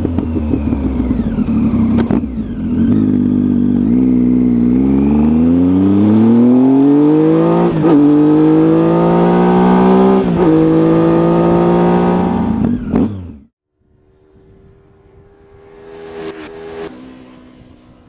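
Triumph Tiger motorcycle engine pulling away and accelerating, rising in pitch with two quick upshifts a couple of seconds apart, then cutting off suddenly; a faint noise follows.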